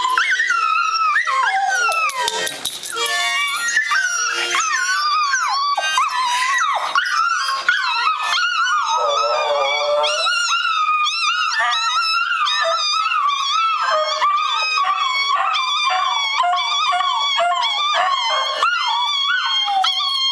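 A Jack Russell terrier and a chihuahua howling together: long, wavering howls that overlap and slide up and down in pitch without a break.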